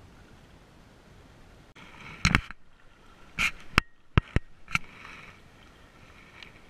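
Wind and lapping lake water. After a sudden cut, a quick run of about six sharp, close knocks and rustles comes from hands handling fishing gear and a soft-plastic bait right at the microphone.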